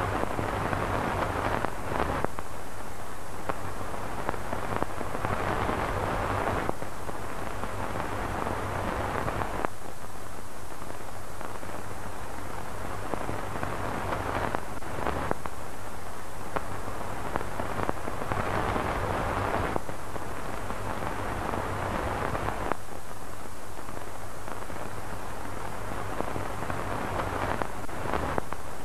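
Crackling static hiss with many small pops over a steady low electrical hum, like worn analog tape noise. The hiss changes in tone every few seconds.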